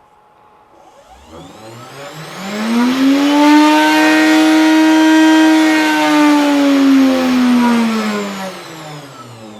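CNC router spindle spinning up to full speed, about 20,000 rpm, with a rising whine. It holds steady at the top for several seconds, then winds down with a falling whine. At this speed the machine vibrates hard enough to shake its fastenings loose.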